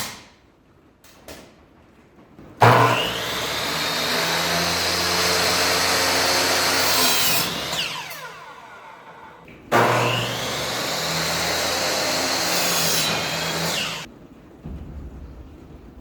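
Electric power saw run twice, about four to five seconds each, cutting framing lumber; after the first cut the blade winds down with falling pitch. A short sharp knock comes right at the start.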